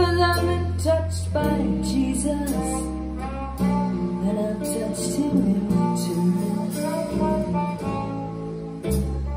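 Recorded music played through ATC SCM19 v2 bookshelf loudspeakers: an instrumental passage of pitched melody notes over a bass line, with deep bass notes strongest at the start and again near the end.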